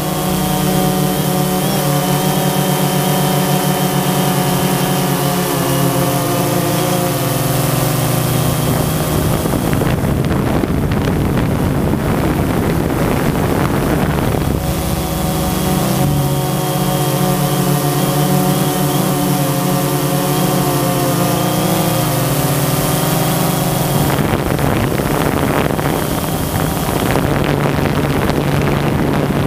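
Propellers and motors of the small aircraft carrying the camera, heard close on its own microphone: a steady low hum with a whine of several held tones above it. Twice the whine gives way to a rush of wind noise.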